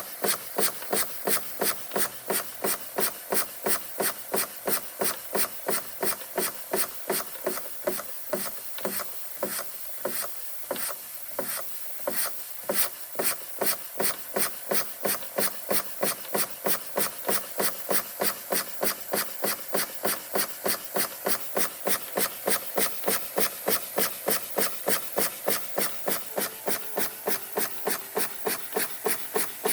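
Bing toy steam engine running steadily, its exhaust giving evenly spaced chuffs at about three a second, a little weaker for a few seconds in the middle.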